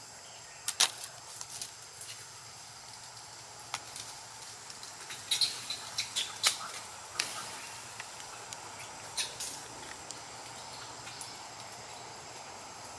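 Forest canopy ambience: insects droning steadily, with scattered short snaps and rustles of twigs and leaves as monkeys climb through the branches. The sharpest cracks come about a second in and in a cluster around five to six seconds.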